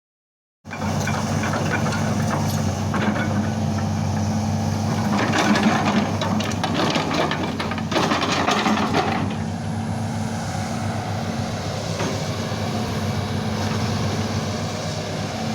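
Hitachi ZX200 excavator's diesel engine running at a steady pitch, starting suddenly just under a second in. From about 2 to 9 s it is joined by metallic clanking and rattling.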